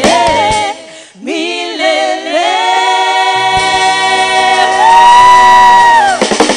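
Worship team singing together into microphones with music, the voices holding long notes. The sound dips briefly about a second in, the voices come back with the low accompaniment dropped out, and the accompaniment returns about halfway.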